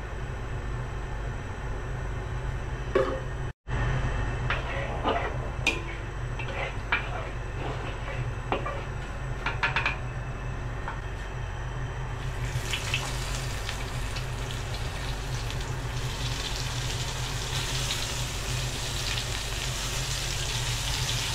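Hot oil in a wok starting to sizzle about twelve seconds in and growing stronger as floured crab pieces fry, over a steady low hum from the stove. Before the sizzling, a few light clicks and knocks of utensils.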